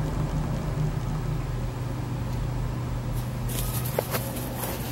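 Steady low mechanical hum, with a few short rustles and clicks near the end and one sharp click about four seconds in.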